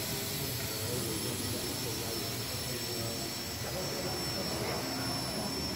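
Small quadcopter drone flying, its propellers and motors making a steady buzz with thin high whining tones.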